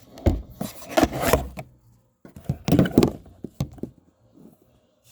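Handling noise from the camera being moved and set in place: several clusters of thumps and rubbing against the microphone, which stop about four seconds in.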